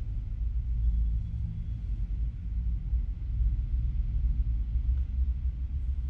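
Steady low background rumble with no clear events in it.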